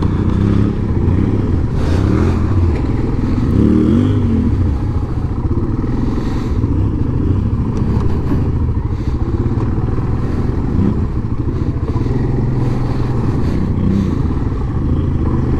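ATV engine running, revving up and down a few times, with its pitch rising and falling.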